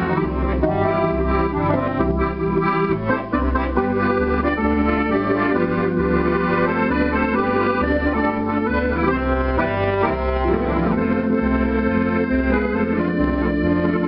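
Zero Sette electronic accordion being played: a tune of held chords over bass notes that alternate about twice a second.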